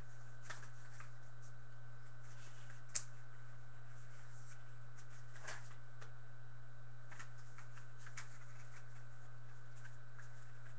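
Steady low hum with a faint high whine, under scattered faint clicks and rustles; one sharper click about three seconds in.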